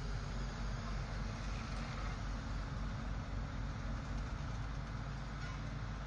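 Steady low rumble of road-paving machinery engines running, with no distinct events.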